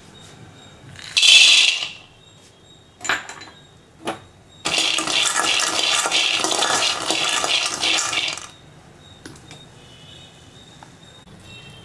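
Raw peanuts being dry-roasted and stirred with a metal ladle in an aluminium kadai: a dense rattling and scraping of nuts against the metal pan for about four seconds. Before it come a short loud burst about a second in and two single knocks.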